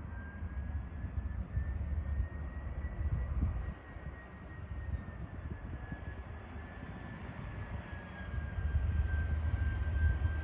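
Airbus A320 jet engines heard from a distance: a low rumble with a steady high whine that drifts slowly up and down in pitch.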